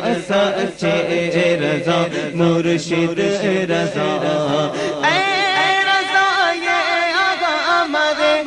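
Qaseedah naat sung by a male reciter into a microphone, over backing voices chanting a steady, pulsing drone. About five seconds in, the lead voice comes in high, with a long wavering melismatic line.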